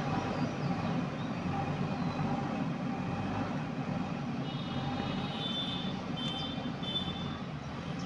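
JCB 3DX backhoe loader's diesel engine running steadily as the machine drives along carrying a loaded front bucket of soil. Several short, faint high beeps come in the second half.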